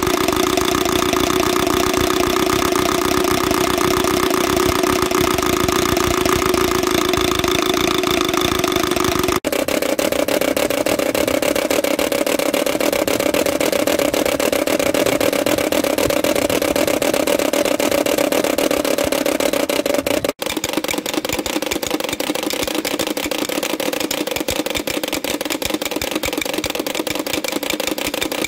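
Hand-cranked wooden Easter rattles (Klibberen), several models in turn, each giving a fast, unbroken wooden clatter as the crank is turned. The clatter changes abruptly twice as one rattle gives way to another.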